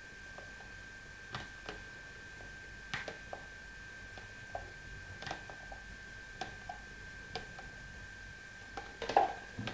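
Frothed milk foam being eased from a measuring cup into a tall glass of coffee: faint, scattered soft clicks and taps, with a slightly louder knock about nine seconds in, over a steady faint high tone.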